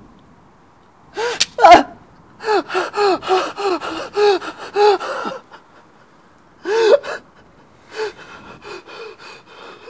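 A man gasping and sobbing in short, panicked breaths: a quick run of about ten gasps, then a few more, further apart and fainter. Just over a second in, a sharp crack is followed by a loud cry, the loudest moment.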